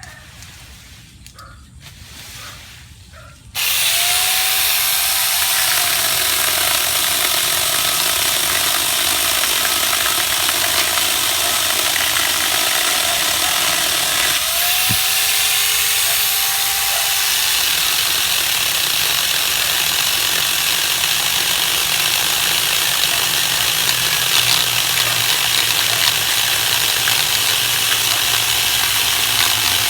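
Chainsaw running steadily and loudly, cutting in abruptly a few seconds in.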